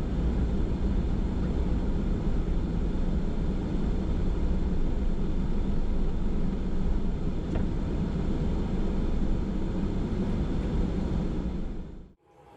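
A steady mechanical drone with a low hum, which cuts off abruptly near the end.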